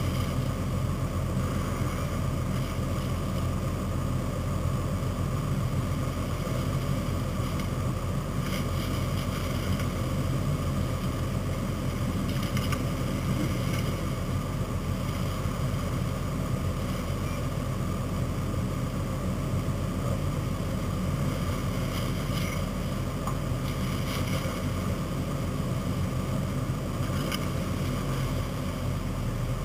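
Off-road 4x4 truck's engine running steadily as the truck churns through a shallow river crossing, with water splashing around its wheels.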